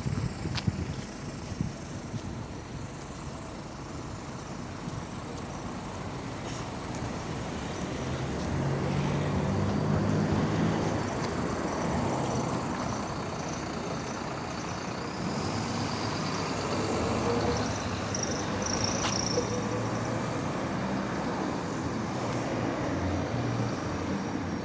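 MAZ-103 city bus driving: its engine and road noise run steadily, the engine note building as the bus accelerates about a third of the way in, then easing off. A short high squeal comes a little past the middle.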